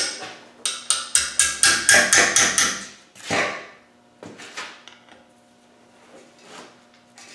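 Rapid hammer blows on the old frost (core) plug in the back of a Land Rover 200Tdi cast-iron engine block, driving it out: about a dozen quick metallic strikes in the first three seconds, one more a moment later, then a few lighter knocks and clinks. The plug is thin and rusty.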